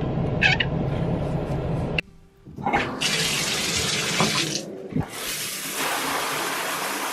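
A steady low hum inside a car's cabin while someone drinks from a water bottle. About two seconds in it cuts off, and shower water starts spraying into a tub as an even hiss. The hiss breaks briefly just before the halfway point, then runs on.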